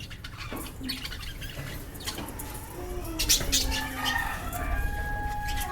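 Pet birds calling, with short chirps and a held whistling call near the end, mixed with flutters and light clicks.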